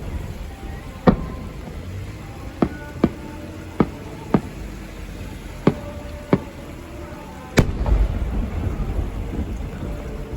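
Aerial fireworks shells bursting: about eight sharp, irregularly spaced bangs. The loudest comes about three quarters of the way through and is followed by a low rolling rumble.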